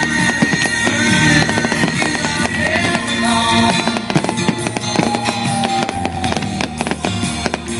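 Aerial firework display: shells bursting and crackling in rapid succession, many overlapping bangs. Music plays loudly at the same time.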